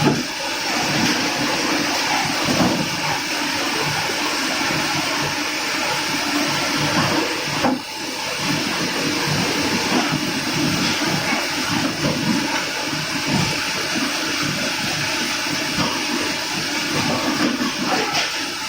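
Steady, loud rushing noise of rolling mill furnace plant, with a short dip about eight seconds in.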